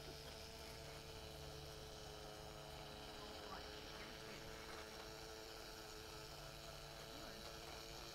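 Faint steady hum made of several steady tones, with a few faint ticks.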